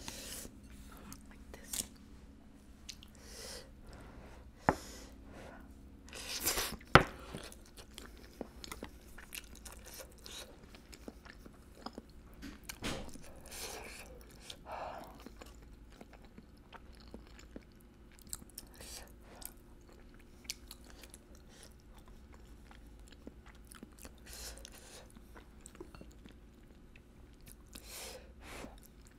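A person eating close to the microphone, chewing and biting spicy tteokbokki rice cakes: many short clicks and mouth smacks, with a few louder bites, the loudest about seven seconds in.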